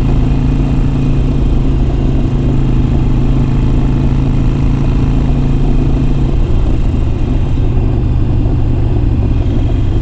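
Harley-Davidson Iron 883's air-cooled V-twin running steadily through Vance & Hines Big Radius aftermarket exhaust while the motorcycle cruises down the road.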